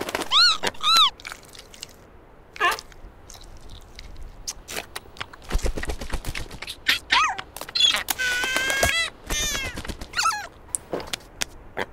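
Cartoon baby seal's squeaky voice: short high calls that rise and fall in pitch, two close together just after the start and a quick run of them in the second half. Between them come a few soft taps and a dull thud.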